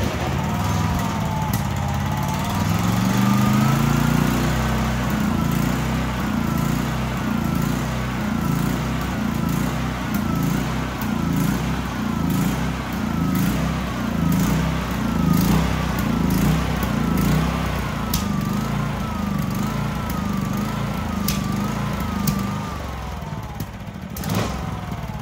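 North Star E420 420cc fuel-injected small engine running just after starting. It revs up over the first few seconds, then runs with its speed wavering up and down about once a second. It drops a little quieter near the end.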